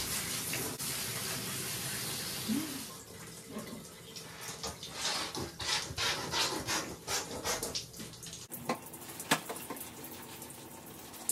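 A handheld shower sprayer runs water over a wet dog's coat in a bathtub and stops about three seconds in. After that come irregular soft squishing and rubbing sounds as shampoo is squeezed out and worked into the wet fur.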